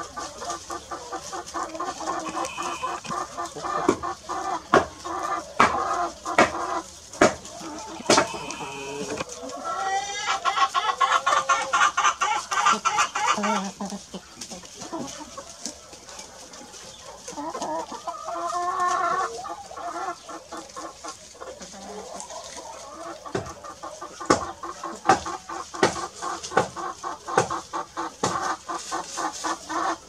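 A flock of chickens clucking and calling as they forage, with many sharp clicks throughout. One longer drawn-out call starts with a rising pitch about ten seconds in and lasts some three seconds.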